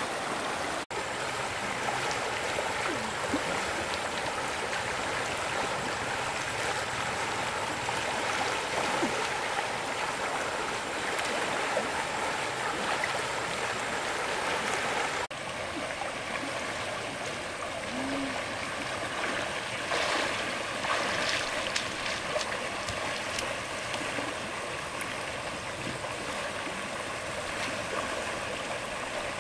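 Stream water running steadily with a rushing, trickling sound. It breaks off briefly about a second in and shifts to a slightly quieter, different flow about halfway through.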